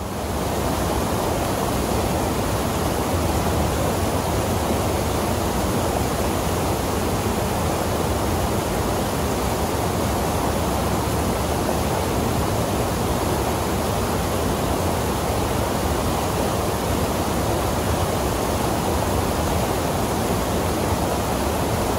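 Small waterfall and rapids pouring into a rock pool: a steady, even rush of falling water with no breaks.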